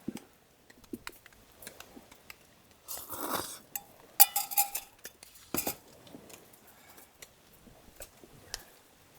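Metal utensils and cookware clinking and scraping at a meal: scattered light knocks, a short scrape about three seconds in, then a quick run of sharp metallic clinks that ring briefly around the middle.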